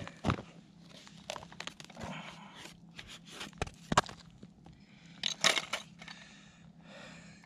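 Scattered crunches and scrapes of boots with ice cleats shifting on crusted snow and ice beside an ice-fishing hole, mixed with knocks from handling a tip-up. There is a louder burst of crunching about five seconds in.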